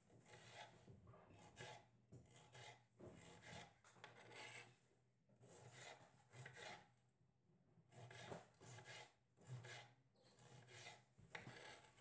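Faint knife strokes slicing cherry tomatoes on a cutting board: short scraping cuts, about one or two a second, at an uneven pace.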